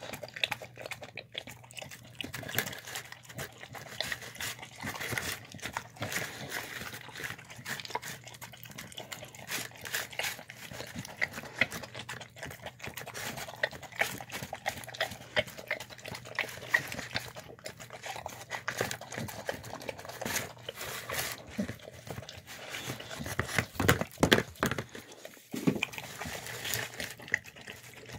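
A dog eating a soft meal of chicken and rice from a clear plastic tub, licking and smacking wetly at the scattered grains in a fast, irregular patter of clicks. There are a few louder knocks about three-quarters of the way through.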